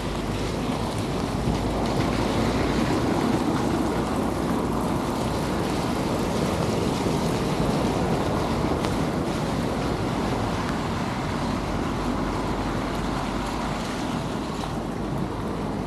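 Steady rain and wet-street noise, an even hiss with tyres on wet paving mixed in. It swells for several seconds in the first half, then eases.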